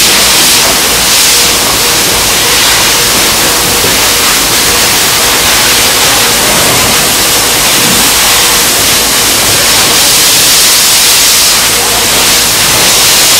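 Loud, steady rushing roar of a refinery fire fed by a ruptured high-pressure crude oil pipe, mixed with the hiss of fire hose water streams.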